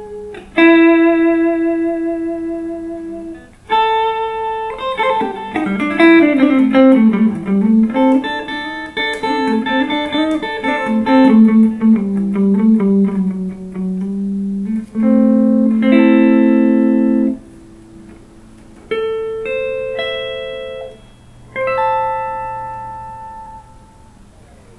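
Clean electric guitar: a 2008 Epiphone Sheraton II semi-hollow body played through a Fender Blues Junior valve amp. It opens with a few held notes and chords, then a fast run of single notes in the middle, then three ringing chords a few seconds apart.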